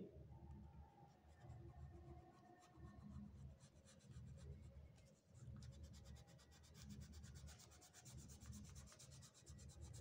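Faint rubbing of an oil pastel on drawing-book paper, in short back-and-forth colouring strokes roughly once a second.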